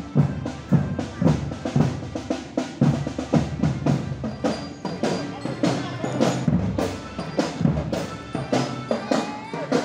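Music led by drums and percussion playing a fast, steady beat, with pitched tones underneath.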